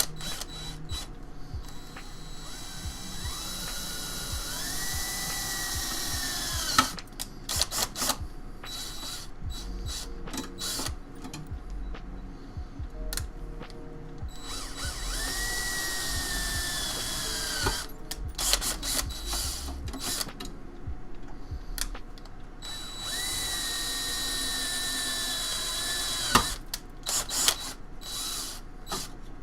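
Power drill running in three runs of a few seconds each, its motor pitch climbing as it spins up and each run stopping abruptly, with clicks and knocks of handling between: drilling holes in the metal of a PC case.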